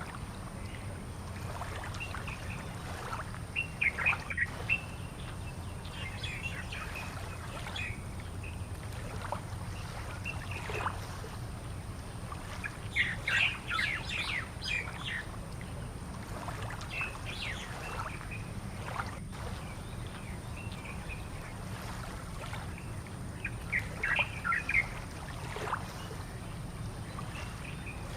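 Small birds chirping in short bursts, a handful of times, with the busiest spell about halfway through, over a steady low hum.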